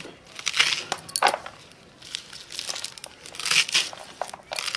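Fresh spinach being sliced finely against an upright fixed floor blade (pahsul): a crisp, crunchy cut every half second to a second, in uneven strokes.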